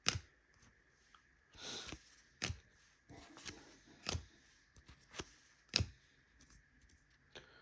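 Trading cards handled one by one, with about eight sharp card snaps and taps at uneven spacing and faint sliding between them.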